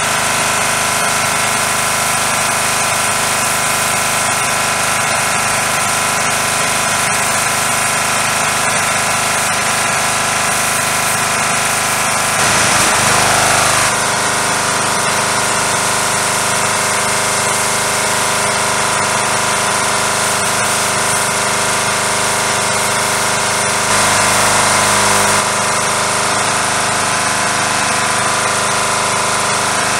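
Pressure washer running steadily while its wand sprays, a constant machine hum with spray hiss. It gets briefly louder about 12 seconds in and again about 24 seconds in.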